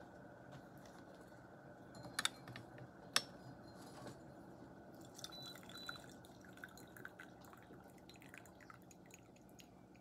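Teaware clinking sharply twice, followed by a scatter of faint drips and small clicks of liquid, over a low steady room hum.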